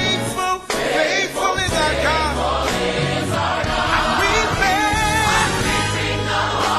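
Gospel music: a choir singing with vibrato over instrumental backing with sustained bass notes.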